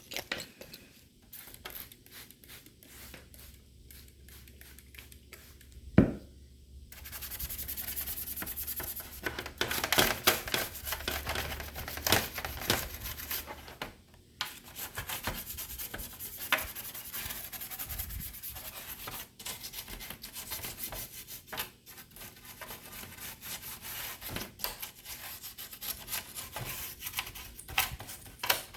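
Rubbing and scrubbing on a laptop's plastic casing and internals while dust is cleaned out, with scattered clicks. A sharp knock about six seconds in is the loudest sound, and the scrubbing is densest for several seconds just after it.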